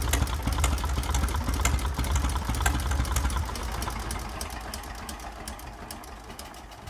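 Engine of a 1919 Blackstone crawler tractor running with a steady low throb and sharp, regular firing knocks, then winding down and fading away over the second half.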